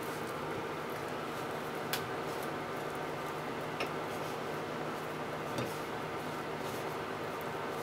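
Fried tofu pieces being handled and set down on a ceramic plate while they are dusted with potato starch: a few light ticks against the plate, about two seconds apart, over a steady hum.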